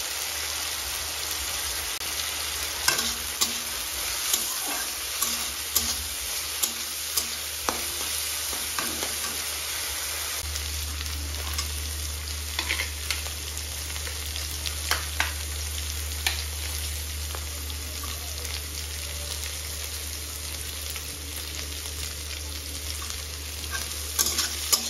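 Mixed vegetables sizzling in oil in a metal kadai, stirred with a metal spatula that repeatedly clicks and scrapes against the pan.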